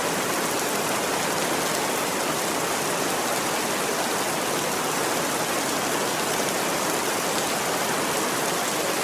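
Steady heavy rain, a dense even hiss with faint patter of drops.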